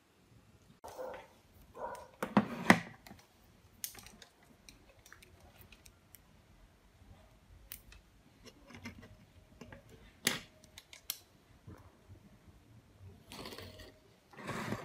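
Small tools and hands working on a smartphone: scattered clicks, taps and scrapes of plastic and metal parts. The loudest is a quick cluster of knocks about two and a half seconds in, with a single sharp click near ten seconds and a stretch of rubbing near the end.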